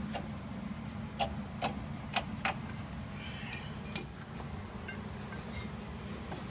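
Steel U-bolts clinking against the leaf-spring plate and axle as they are fitted by hand: a few light clicks, then a sharper ringing clink about four seconds in. A steady low hum runs underneath.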